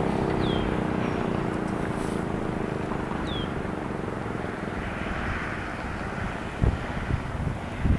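Outdoor rumble slowly fading, with two short high falling chirps and low thumps of wind buffeting the microphone near the end.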